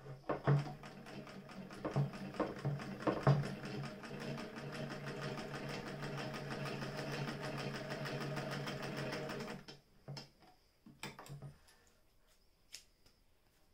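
Singer 99K hand-crank sewing machine stitching through leather. It makes a few slow, separate stitches, then runs fast and steady for about six seconds, and the rattle of stitches stops suddenly almost ten seconds in. A few scattered clicks follow as the work is handled.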